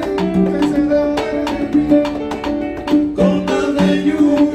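Live salsa band playing: sustained melody and chord notes over a steady beat of drum and cymbal strikes.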